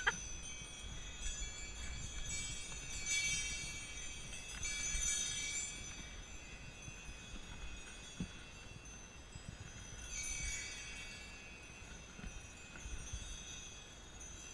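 Sleigh bells on a Shetland pony's sled jingling as the pony pulls the sled along, swelling and fading unevenly, over a faint low rumble.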